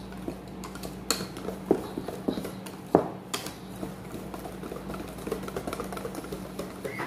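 Wire whisk beating pancake batter in a stainless steel bowl: irregular clicks and taps of the whisk wires against the metal, the sharpest knock about three seconds in.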